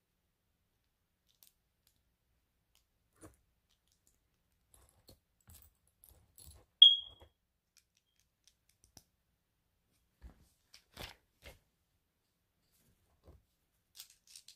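Scattered faint clicks and rustles of small plastic Lego pieces being handled, with one short, sharp high-pitched ping about seven seconds in, the loudest sound here.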